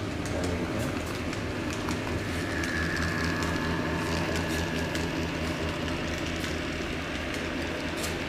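N-scale model diesel locomotive running around a model railway layout with a train of coaches: a steady motor hum with light clicks from the wheels on the track.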